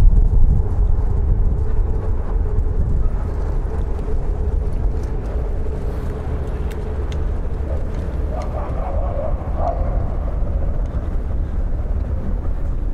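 City street ambience: a steady low rumble of vehicle traffic with a faint steady hum, and brief indistinct voices about eight seconds in.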